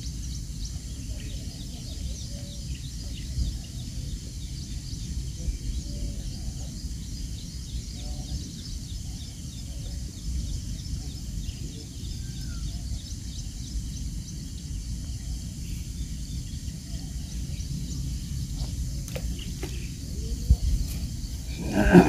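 Open-air ambience: a steady low rumble of wind on the microphone, with faint scattered bird chirps and one short louder sound at the very end.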